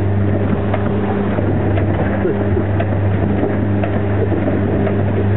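A boat's engine drones steadily, with an even, constant pitch, heard from inside the cabin while under way.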